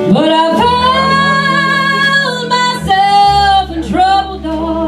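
A woman singing with a live band while playing an electric keyboard. Her first note is held for about two seconds, followed by several shorter phrases.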